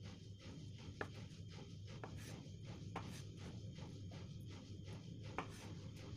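Chef's knife slicing pressed dried tofu into strips on a cutting board, with scratchy cutting strokes and a few sharp taps of the blade on the board about a second apart. A low steady hum runs underneath.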